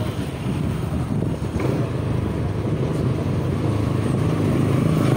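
Motorcycle engine running as it rides slowly along a street, with road and traffic noise around it. The engine hum grows a little louder in the second half.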